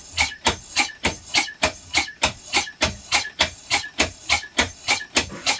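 Pump of a polyurethane spray-foam reactor, fitted with a stainless transfer tube, cycling fast and steadily while it recirculates flushing fluid through the hose: about four or five sharp puffs a second.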